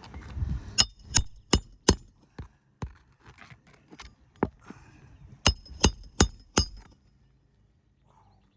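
Hammer striking a roofing nail into a shingle, two quick runs of four ringing blows with a few lighter taps in between.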